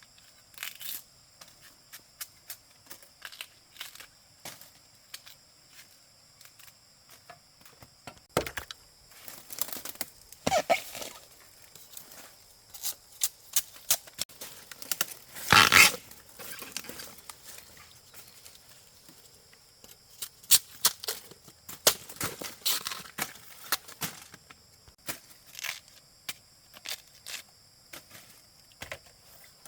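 Dry plant material being torn and rustled: a run of short crackles and snaps, with one louder tearing rip about 15 seconds in.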